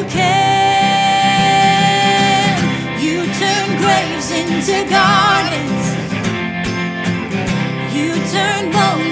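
A woman sings a worship song over strummed guitar. She holds one long note for about the first two and a half seconds, then sings shorter, wavering phrases.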